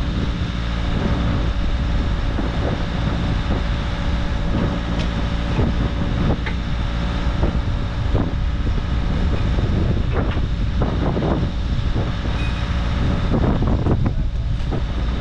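Bobcat T66 compact track loader's diesel engine idling steadily, with wind buffeting the microphone. A few short knocks and clatters come through, mostly in the second half.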